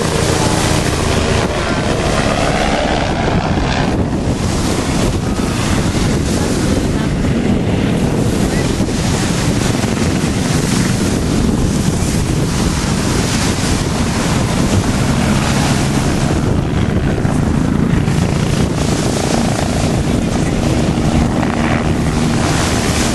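Heavy wind noise on the microphone over a steady low rumble, with a helicopter's engine hum showing faintly through it now and then.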